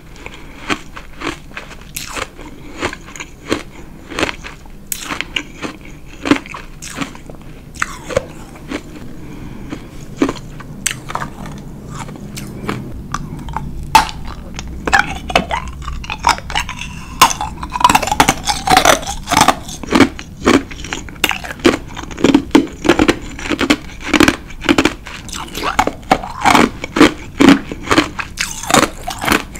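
Ice being bitten and chewed close to the microphone: a steady run of sharp, crackling crunches. About halfway in, after a fresh piece goes into the mouth, the crunches come faster and louder.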